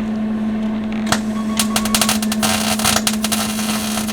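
Gas-shielded MIG welder's arc crackling and spitting in fast irregular bursts as a weld bead is run on a car's sheet-steel wheel pan, starting about a second in, over a steady low hum.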